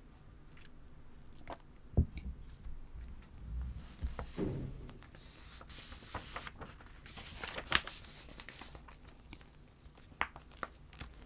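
Close handling noises from a hand moving near the microphone: a sharp knock about two seconds in, then soft rustling and a few light clicks.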